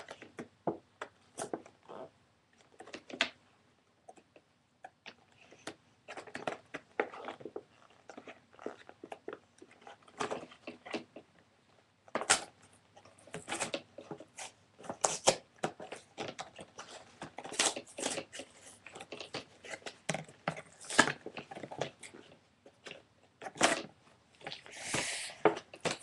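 Plastic and cardboard toy packaging being handled and pulled apart: irregular crackling, crinkling and clicking, sparse at first and busier from about halfway.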